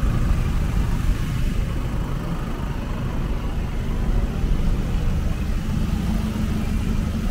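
Busy street traffic: car engines running past in a steady low rumble.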